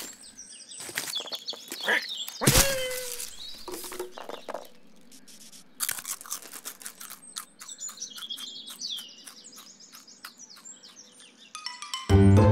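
Cartoon soundtrack of garden birds chirping in runs, over a string of short clicks and rustles, with a loud sudden noise and falling glide about two and a half seconds in and another burst near six seconds. Jazzy music starts near the end.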